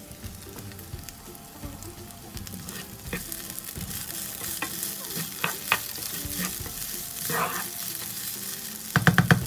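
Basmati rice and chickpeas sizzling as they toast dry in a nonstick frying pan for pilaf, stirred and scraped with a plastic spoon, with scattered scrapes and clicks. Near the end, a quick run of louder knocks as the spoon strikes the pan.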